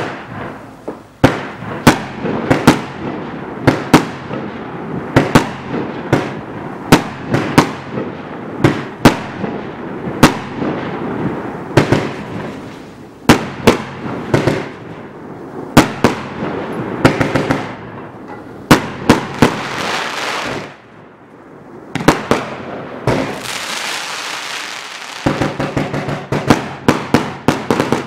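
A 72-shot consumer fireworks cake (1.0" and 1.2" calibre combination) firing: a steady run of sharp bangs, about one or two a second, with crackling stars between them. After a short lull there is a stretch of dense crackling, followed by a quicker run of bangs near the end.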